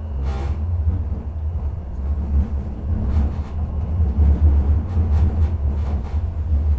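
Interior running noise of a Class 399 Citylink tram-train under way: a steady low rumble from the wheels on the rails and the running gear, growing somewhat louder about halfway through.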